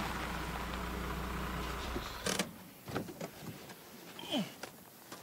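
A ute's engine idling steadily, then switched off about two seconds in. A single clunk follows, then a few light clicks and a short squeak from the vehicle's door or fittings.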